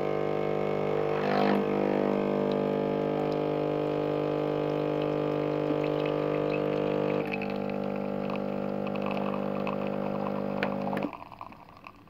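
Anko semi-automatic espresso machine's pump humming steadily while an espresso shot pours into a mug. The hum drops slightly in level about seven seconds in and cuts off near the end.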